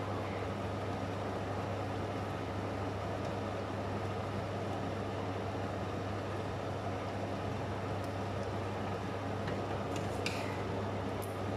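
A stockpot of chicken stew boiling hard on a lit gas burner: a steady rushing noise with a constant low hum. Near the end come a few light clinks of a metal ladle against the pot.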